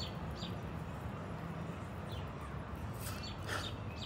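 A few short, high bird chirps, each falling in pitch, over a steady low outdoor background rumble, with a brief rustle about three seconds in.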